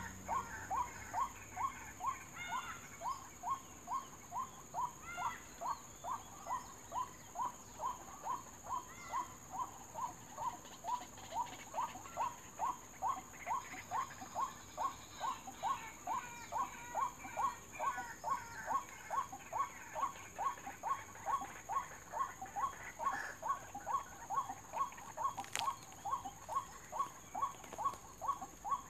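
White-breasted waterhen lure call: a short 'kwak' note repeated very evenly, about twice a second, without a break. A steady high whine runs underneath.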